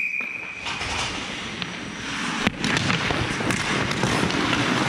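The tail of a referee's whistle blast: a steady high tone that stops about a second in. After it, hockey skates scrape on the ice, with a single sharp crack about two and a half seconds in.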